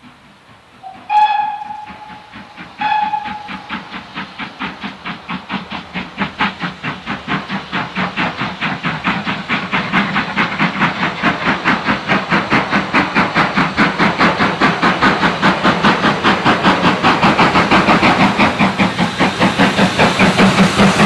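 GWR Modified Hall 4-6-0 No. 6989 steam locomotive sounds two short whistle blasts, then approaches under power with a rapid, even beat of chimney exhaust that grows steadily louder as it nears.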